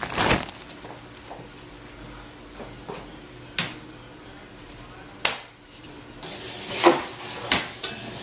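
Handling noises in a small room: about half a dozen separate knocks and clacks of objects being set down or moved, spaced irregularly, over a quiet steady background.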